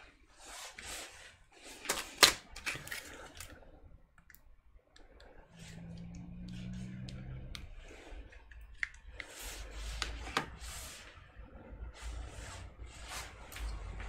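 Handling noises from an all-in-one PC and its hinged stand being moved on a padded workbench: a few sharp clicks and knocks about two seconds in, then rustling, with more clicks and rustling near the ten-second mark.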